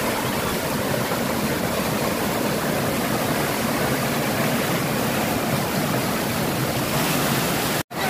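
Water rushing steadily over the stepped weir of a full, overflowing lake at high flow, with a sudden instant of silence just before the end.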